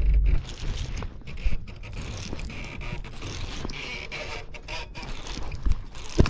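Knocks, scrapes and rustling from hands working right at the camera on the kayak while a bass is landed. A heavy thump opens it, and sharp clicks come about a second and a half in and twice near the end.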